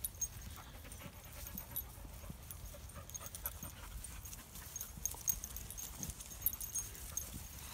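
Dogs panting and moving through grass, with scattered footfalls and rustles and a low steady rumble underneath.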